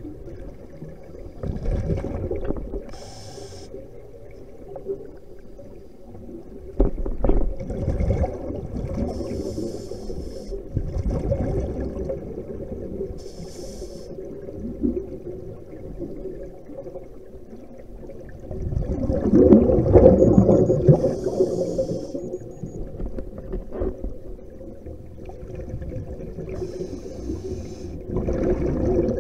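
Muffled underwater audio from a camera in a waterproof housing: a steady low drone with water rushing and bubbling, and short hissing bursts every few seconds. The loudest surge of rumbling comes about two thirds of the way through.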